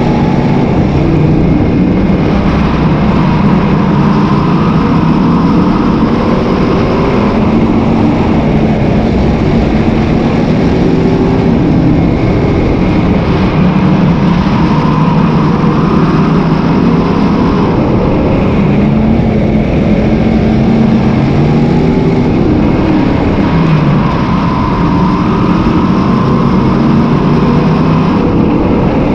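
Sportsman modified dirt race car's V8 engine heard from an onboard camera, revving up and easing off in a repeating cycle as the car laps the oval, with heavy rumble on the microphone.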